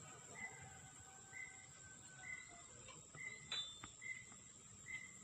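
Faint outdoor insect chorus: a steady, high-pitched drone, with a short, higher note repeating about once a second and a couple of sharp clicks a little past the middle.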